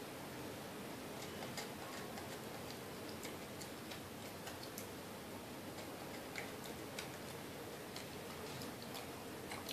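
A monkey chewing a crunchy biscuit: small irregular crisp clicks over a steady hiss.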